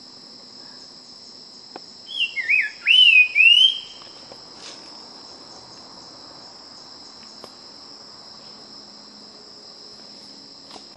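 Nava's Wren singing one short phrase of loud, clear whistled notes that slide down and waver, about two seconds in. A steady high insect buzz runs underneath.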